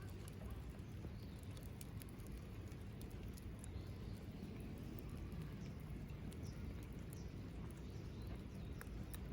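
Small wood fire crackling in a Belmont BM-263 TABI fire pit: irregular sharp pops and snaps over a low, steady rushing noise.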